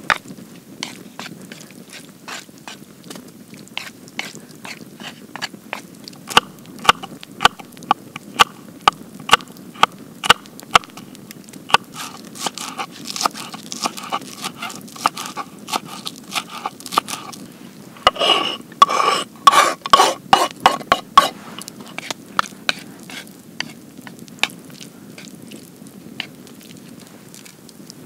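Kitchen knife chopping green onions on a wooden cutting board: a run of sharp, even knocks about two a second, with a fast flurry of chops a little past the middle.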